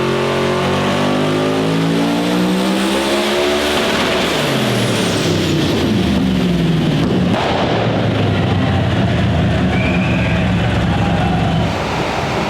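Twin-turbocharged 398 cubic inch Holden V8 (twin Garrett 88 turbos) running hard under load on a chassis dyno, on around 55 psi of boost. Its note rises in pitch through the first few seconds, changes abruptly about seven seconds in, and eases off near the end.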